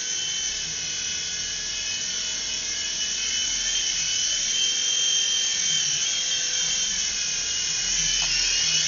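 Small electric motors and rotor blades of a mini infrared RC helicopter whining steadily in flight, the pitch drifting slightly up and down as it moves about.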